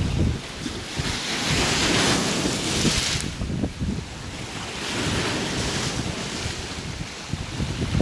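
Small sea waves breaking and washing over dark boulders on a rocky shore. The surf hiss swells twice, about a second in and again about five seconds in, over a gusty rumble of wind on the microphone.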